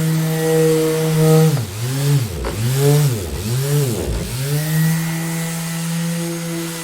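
Electric orbital sander running at a steady pitch; about a second and a half in, its motor pitch drops and recovers three times in quick swoops, then settles back to its steady run.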